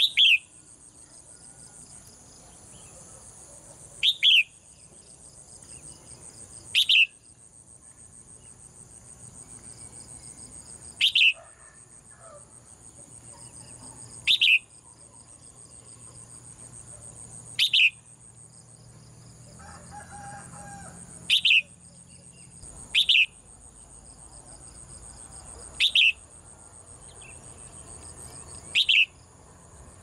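Caged crested bulbul giving short, sharp single chirps, each a quick falling note, repeated about ten times at intervals of a few seconds over a steady high insect drone.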